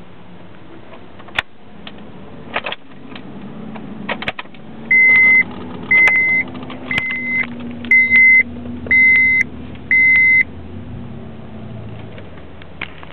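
A car's electronic warning chime beeping six times at one steady high pitch, about once a second, each beep about half a second long. A few sharp clicks come before it, over a low steady hum.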